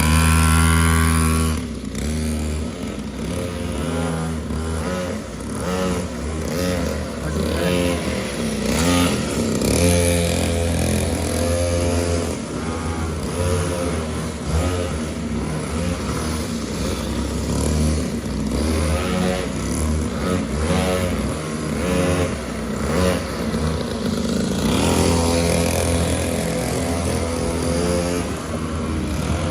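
Mini motorcycle engine running and revving, its pitch rising and falling again and again, every second or two.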